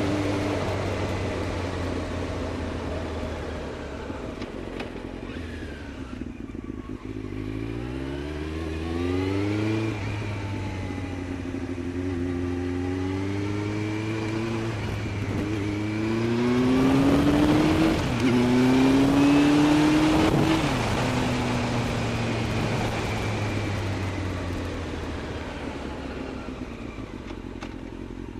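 Yamaha Fazer motorcycle engine pulling hard through four gears, its pitch climbing and dropping back at each upshift. The engine then eases off and settles.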